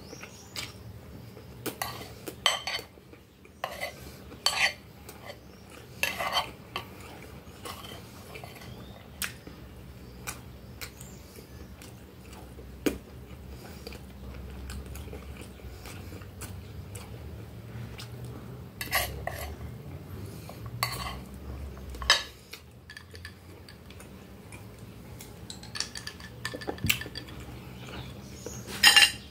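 Metal fork clinking and scraping against a glass plate while scooping rice and meat. The clicks come in scattered clusters with quieter stretches between, the loudest near the end.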